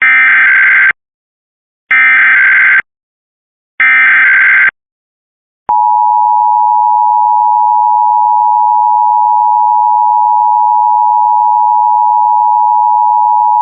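Emergency Alert System monthly-test tones: three bursts of SAME digital header data, each about a second long and about two seconds apart. About six seconds in, the steady two-tone EAS attention signal (853 and 960 Hz) starts and holds for about eight seconds.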